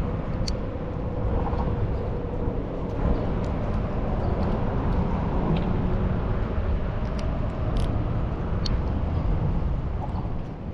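Steady low outdoor rumble with a few faint, light ticks scattered through it.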